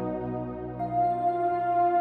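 Soft ambient new-age background music of sustained chords, a new held note coming in a little under a second in.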